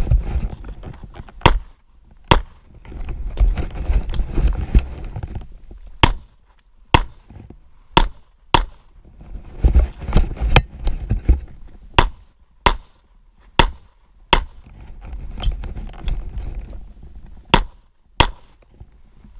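A handgun firing a string of shots, about sixteen sharp cracks, often in quick pairs, with low rustling movement noise between groups of shots as the shooter moves between positions.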